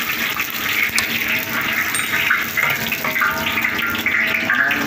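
Gas wok burner running with a steady rush under a wok of hot oil, with one sharp click about a second in.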